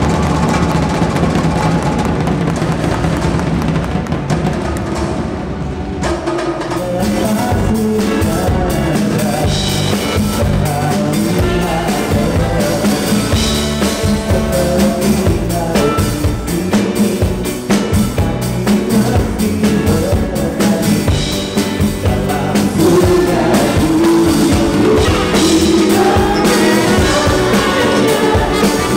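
Live pop-jazz band playing an instrumental opening. A low sustained chord holds for about six seconds, then drums and bass come in and the full band plays on.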